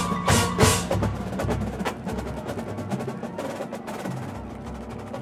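Drum corps percussion section playing. It opens with a few loud accented hits in the first second, then drops to quieter, rapid ticking strokes.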